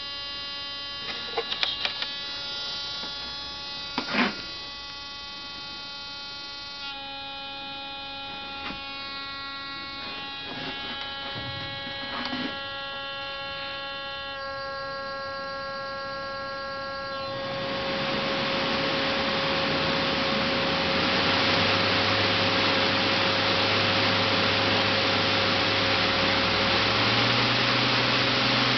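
Brushed DC motor driven by an NE555 pulse-width-modulation speed controller: a steady whine with many overtones from the PWM switching, whose tone shifts twice as the duty cycle is changed, with a couple of sharp clicks in the first few seconds. About two-thirds through, a loud rushing noise swells in as the motor speeds up and moves air, and its low hum steps up in pitch twice near the end.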